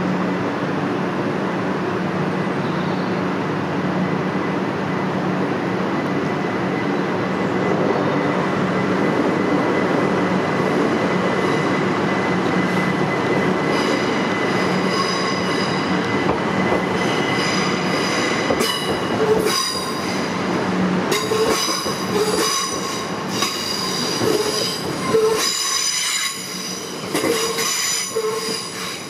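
Class 387 Electrostar electric multiple unit departing: a steady low hum and running noise at first, then from about halfway a set of high-pitched whining tones over the noise as the train moves off and passes close by.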